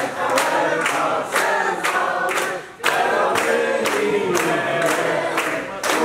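A group of people singing a birthday song together, clapping in unison about twice a second, with a short break in the singing about halfway through.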